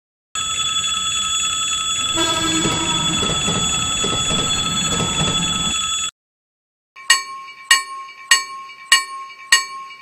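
Railroad crossing warning sounds. First a steady ringing of several high pitches for about six seconds. Then, after a second's gap, a crossing bell is struck about every 0.6 seconds, each strike ringing out.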